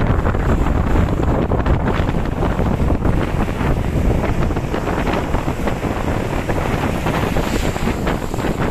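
Wind buffeting the microphone over the steady wash of breaking sea waves.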